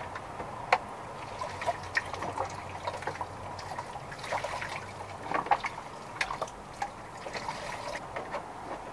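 Water splashing and trickling in a plastic tub as a wet miniature schnauzer is scrubbed by hand, a run of small irregular splashes and drips.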